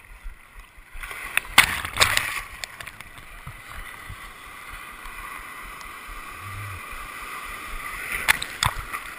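Breaking surf and whitewater rushing around and over a camera at water level, with sharp splashes as waves hit it, a few about one and a half to two seconds in and again near the end.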